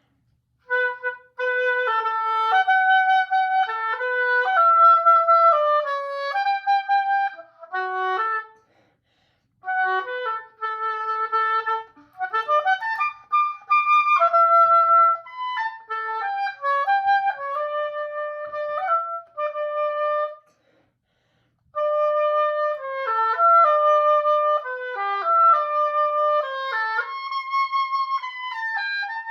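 Solo oboe playing a loud, fast-moving melodic passage marked forte con fuoco, in three phrases with two short pauses for breath.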